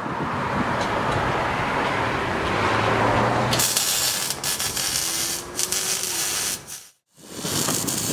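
Welding on a car's exhaust pipe: a steady crackling hiss, muffled for the first few seconds, then brighter, with a brief break near the end.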